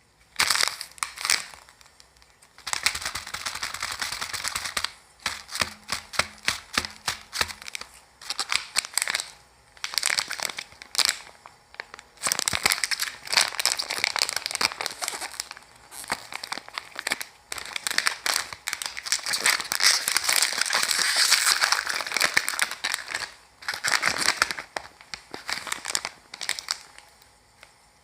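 Crinkling and tearing of plastic packaging being handled and torn open, in irregular bursts with quick crackles and short pauses.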